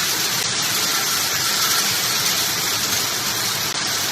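Hail and heavy rain coming down hard, a dense, steady hiss of countless small impacts blending together.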